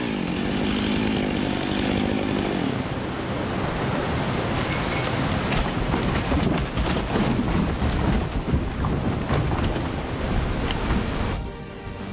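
Chainsaw running and cutting into a large log over the loud, steady rush of a waterfall and river. The saw's engine note stands out for the first two or three seconds, then the water noise dominates, and the sound dips briefly near the end.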